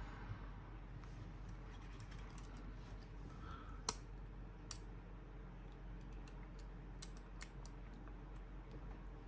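Scattered faint clicks and light taps as a steel multitool is handled and its tools are worked; the sharpest click comes about four seconds in.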